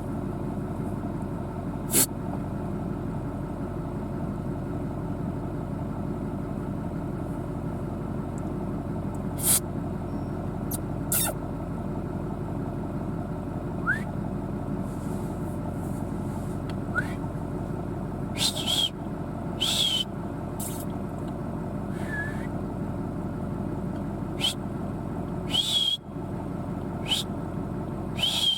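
A vehicle engine idling steadily, with a few sharp clicks and, in the second half, several short, high whistling calls, two of them rising in pitch.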